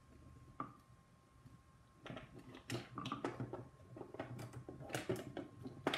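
Irregular clicks, taps and light scrapes of hands working metal threaded rods through the holes of a plastic blaster stock. It is quiet at first, and the clicking starts and keeps up from about two seconds in.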